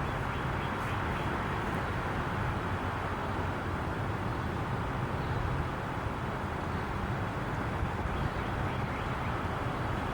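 Steady hiss of road traffic.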